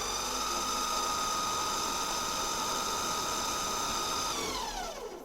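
Metal lathe spindle running with a steady high motor whine, then winding down near the end as the spindle stops.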